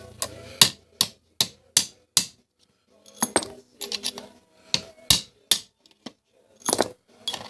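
Hammer tapping a lineup pin to drive plastic packaging out of sockets held in a vise: five quick, evenly spaced metal taps, then a run of lighter, irregular clicks and clinks.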